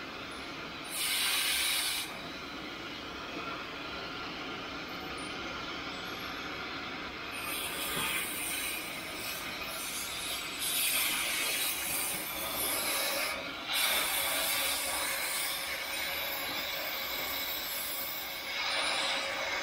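Oxy-fuel cutting torch hissing steadily as it cuts through steel, with louder surges of hiss about a second in, several times in the middle, and near the end.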